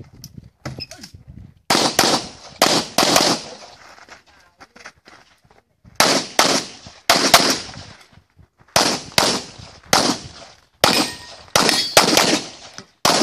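Handgun shots fired in quick pairs (double-taps), bunched into strings of about four with short pauses between them, as in a practical-shooting stage run.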